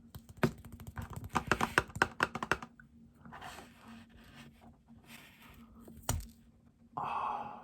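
A quick run of crackling clicks as a snack is handled, then a single sharp snap about six seconds in: a thin matcha Oreo cookie being broken in two.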